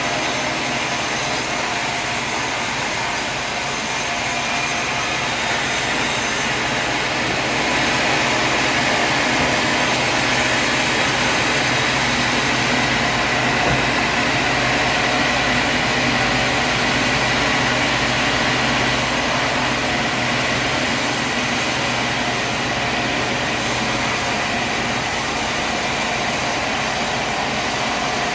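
Sawmill machinery running steadily: a continuous mechanical noise with a steady high whine.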